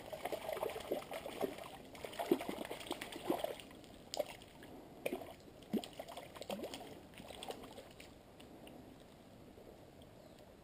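Hooked trout splashing at the surface of a shallow stream as it is drawn in on the line: a run of irregular splashes and gurgles that starts suddenly and dies down over the last couple of seconds.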